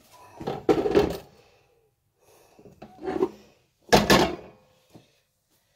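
A small lidded pot being set down and shifted on a gas hob, scraping and knocking against the pan support in two main clatters, about a second in and near four seconds, with a smaller one in between.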